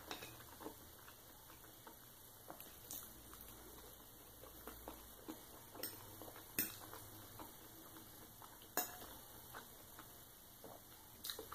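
Faint metal fork scraping and tapping on a ceramic plate while picking up food, with a few sharp clinks about six, seven, nine and eleven seconds in.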